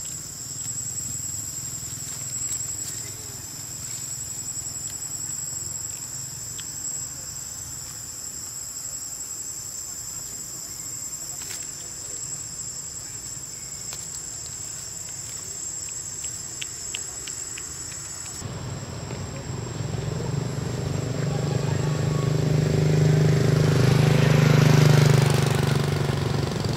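Steady, high-pitched insect chorus. About two-thirds through it cuts off suddenly and a louder low droning hum takes over, swelling toward the end.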